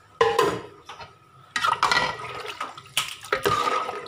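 Water and milk poured into a large aluminium pot of mutton biryani masala, splashing in a few pours: a short one just after the start, then longer ones from about halfway through.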